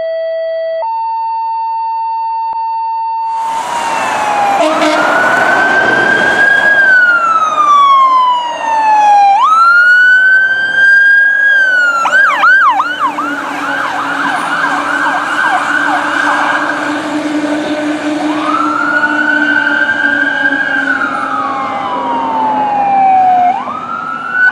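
A 2018 Pierce Enforcer fire engine responding: a steady horn tone that steps up in pitch for the first few seconds, then the siren wailing up and down, switching to a fast warbling yelp for about five seconds, then back to a slow wail. The truck's engine and road noise run underneath.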